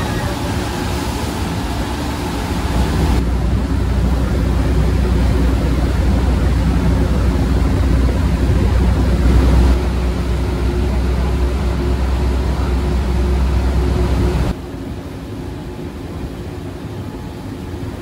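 Passenger ferry under way: a steady low engine drone with water rushing along the hull. The drone gets louder about three seconds in and drops off sharply a few seconds before the end.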